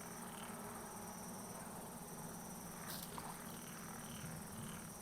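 Faint night ambience of insects: a steady high drone with scattered short chirps, over a low steady hum. A light click comes about three seconds in.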